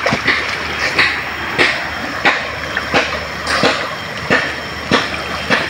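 Rhythmic splashing in river water, about three splashes every two seconds, over a steady background rush of water.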